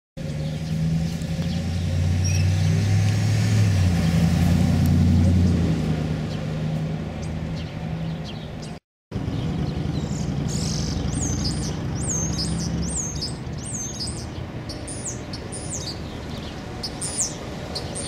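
A motor vehicle's engine hums past, swelling to a peak and then fading over the first several seconds. After a short break, a small songbird gives a run of high, quick chirps, about one or two a second, over a low, steady traffic rumble.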